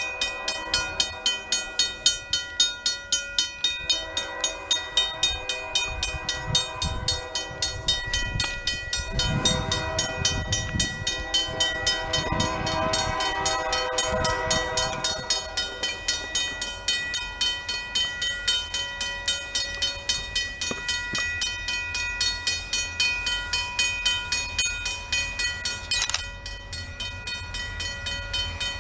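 Railroad grade-crossing bell ringing with even, rapid strikes while the crossing signals are active for an approaching train.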